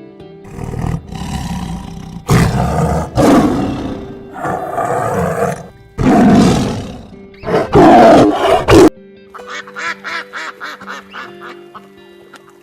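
Background music with loud animal calls: about six long, rough calls in turn over the first nine seconds, then a quick run of many short, sharp calls to the end.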